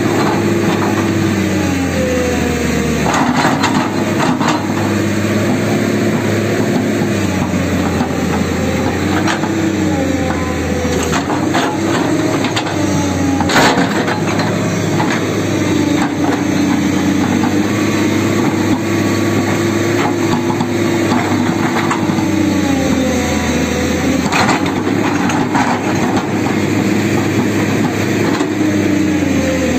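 Tata Hitachi hydraulic excavator's diesel engine running under load, its pitch dipping and recovering again and again as the boom and bucket are worked. Scattered knocks and scrapes come from the bucket digging into stony soil, the sharpest about halfway through.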